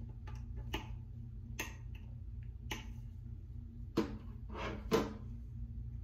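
Scattered light clicks and taps, about seven of them at uneven intervals, from handling a Zippo lighter and a can of lighter fluid, over a steady low hum.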